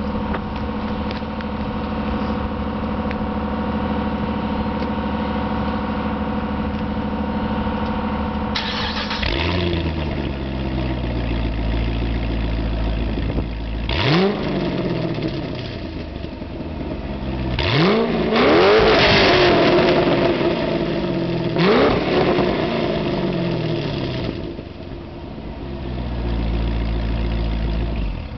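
A steady hum, then about nine seconds in the 2005 Pontiac GTO's 6.0-litre LS2 V8 starts through its Corsa Sport cat-back exhaust and settles to idle. It is revved several times, once held for about two seconds, then drops back to idle.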